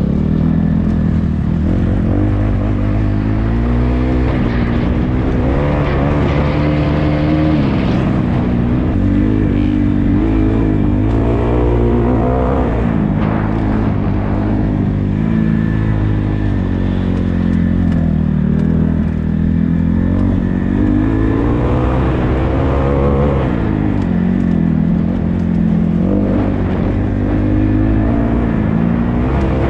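Motocross dirt bike engine being ridden hard, revving up and backing off over and over, its pitch climbing and dropping every few seconds.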